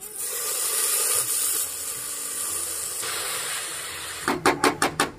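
Soaked basmati rice going into hot oil and fried onions in an aluminium pressure cooker, hissing and sizzling, loudest in the first second or so. Near the end there is a quick run of about six sharp strokes, about five a second.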